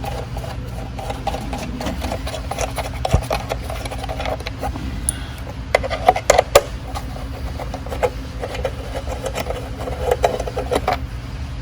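A 5 mm Allen key unscrewing metal bolts from threaded holes in an ATV's frame: rapid light scraping and ticking, with a few sharper metallic clicks about six seconds in, over a steady low hum.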